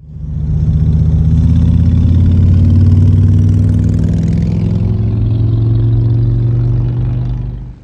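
Harley-Davidson Road King's Twin Cam 88 V-twin engine running steadily and loud, cutting off suddenly near the end.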